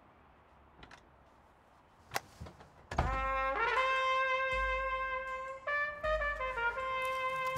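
Near silence with a couple of faint clicks, then about three seconds in film-score music enters: a brass instrument, trumpet-like, slides up to a long held note over low bass swells, the held note shifting about halfway through.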